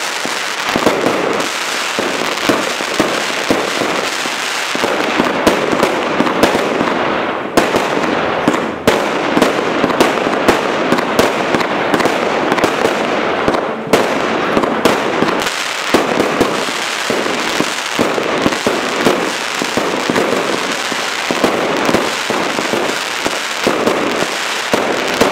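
A 200-shot fireworks battery (cake) firing shot after shot in quick succession, each shot launching and bursting with a sharp bang, many bangs a second.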